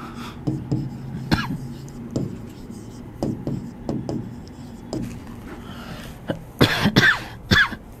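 Quiet scattered taps over a low steady hum, then a few short coughs near the end.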